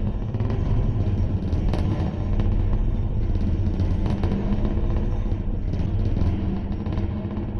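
Live experimental electronic noise music: a dense, steady low rumble with a few faint clicks above it, made by the performers' homemade electronics and effects.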